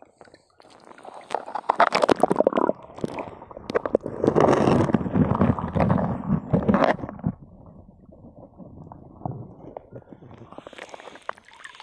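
Muffled sloshing and scraping of water and mud, heard through a waterproof phone pouch as a hand gropes on the stream bed for snails. It is loudest and busiest for the first several seconds, then quieter and more scattered.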